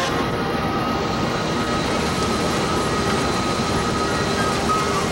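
Steady road and wind noise inside a vehicle travelling at highway speed, with a faint, steady high tone over it.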